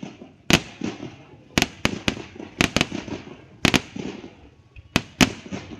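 Fireworks going off in a string of a dozen or more sharp bangs at irregular intervals, each trailing off in a short echo.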